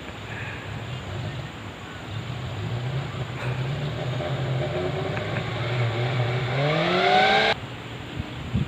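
Off-road jeep engine running under load, its revs building slowly and then climbing sharply near the end before cutting off abruptly.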